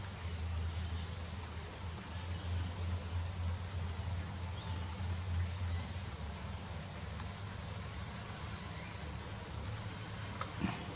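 Steady low rumble, with a faint, very high, short down-slurred bird call repeating about every two seconds. There is a single knock near the end.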